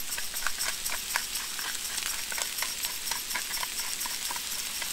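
Bacon and chanterelle mushrooms frying in fat in a cast-iron pan: a steady sizzling hiss with many small crackling pops.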